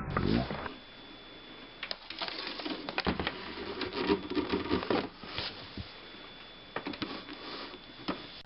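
Small objects being handled in a small room: irregular clicks, taps and knocks in two spells, with a faint steady high-pitched whine underneath.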